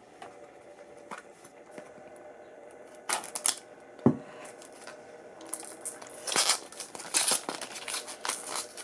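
Cellophane wrap on a small cardboard toy box crinkling as hands handle it and work at the wrapper. It starts about three seconds in, with a single knock about a second later, and grows into dense crackling through the second half.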